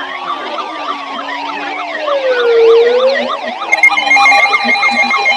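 Several sirens sounding at once: a slow wail rising and falling over a few seconds overlaps a rapid yelp. A steady high electronic alert tone joins about two-thirds of the way in.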